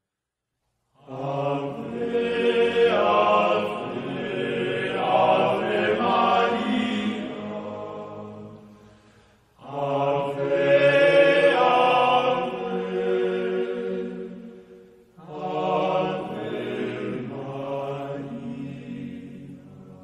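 Background music of voices chanting in long, sustained choral phrases. After a second of silence, three phrases each start suddenly and fade away slowly.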